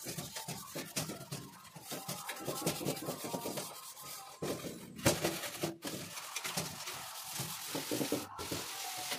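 Steel wool scrubber rubbing over a soapy stainless steel dish rack shelf: a rough, scratchy scrubbing made of many quick strokes.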